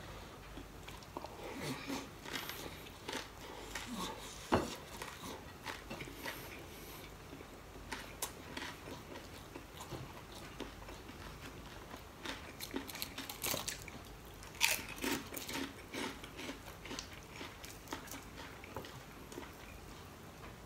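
Close-up crunching and chewing of crisp fried dried fish eaten with rice by hand, in irregular crackles and bites. A sharper crack comes about four and a half seconds in and another near fifteen seconds.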